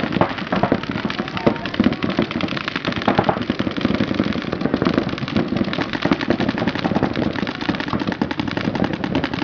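Paintball markers firing in rapid, overlapping strings of shots, several guns going at once with many pops a second.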